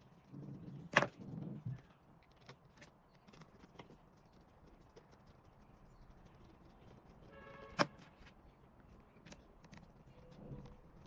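Hands handling and working on a handheld scan tool: light rustling and small taps, with a sharp click about a second in and another near eight seconds, the second just after a brief buzzing tone.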